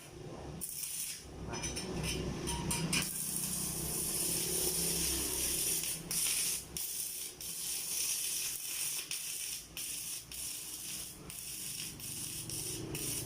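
Stick-welding arc from a Hồng Ký HK 200K inverter welder burning a wet 2.5 mm electrode: a crackling hiss, broken and stuttering for the first few seconds as the arc is struck, then steady.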